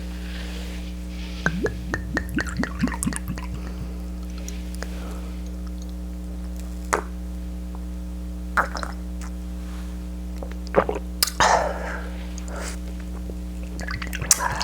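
Soft steady background music with dishes and cutlery clinking: a quick run of small clinks about a second and a half in, then scattered single clinks, the loudest about eleven seconds in.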